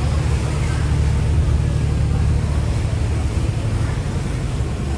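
Steady low rumble of a passenger ferry's engine, with wind and water noise over it.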